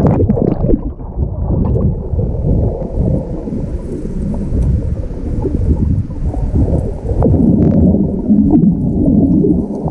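Muffled rumbling and gurgling of churning river water heard from underwater, through a camera held below the surface in a pool, growing louder for the last few seconds.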